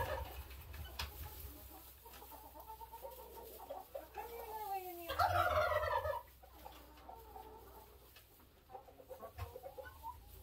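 Domestic hens clucking and calling, several falling calls in a row and then one loud call about five seconds in.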